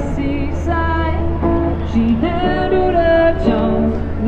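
Music with a woman singing, holding long notes one after another over a steady low hum.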